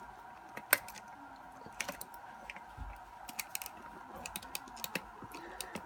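Scattered small clicks and taps of a lock and lock-picking tools being handled, with the sharpest click about two-thirds of a second in.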